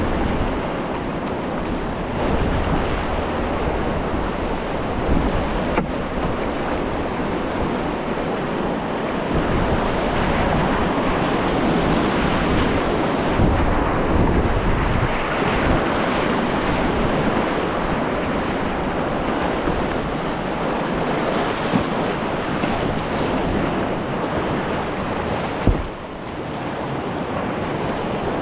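Whitewater of a river rapid rushing steadily around a kayak, with wind rumbling on the microphone. There is a single sharp knock near the end.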